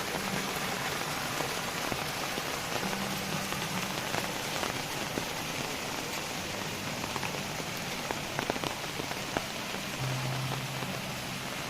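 Heavy rain falling steadily, with scattered sharper drip and splash sounds. A faint low hum comes and goes underneath.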